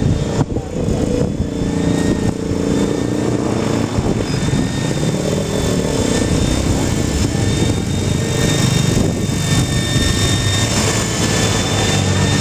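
Electric radio-controlled model helicopter in flight: a steady high whine from its electric motor over a lower rotor drone.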